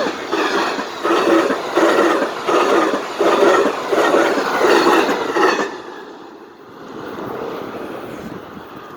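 Passing train: the wheels and cars clatter in a steady rhythm of about two strokes a second. About six seconds in the noise drops off sharply to a softer rumble that fades away.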